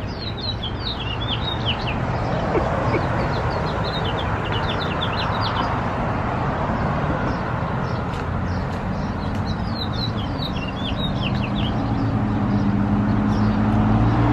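A songbird singing from a perch in two bouts of quick, downward-slurred high notes, the second bout starting about eight seconds in. Steady traffic noise lies underneath, swelling near the end with a vehicle's engine hum.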